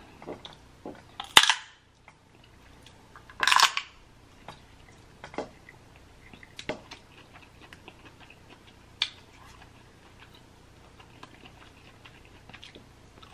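Snow crab legs being cracked, picked apart by hand and eaten: two louder sharp sounds about one and a half and three and a half seconds in, then scattered small clicks and taps of shell.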